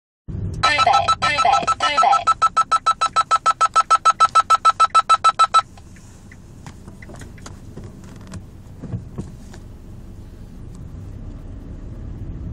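Driving-test course emergency warning alarm sounding inside the test car: a fast electronic beep, about six beeps a second, that cuts off suddenly after about five seconds. It is the signal for a sudden emergency, which calls for braking and switching on the hazard lights. After it, low cabin noise with scattered faint clicks.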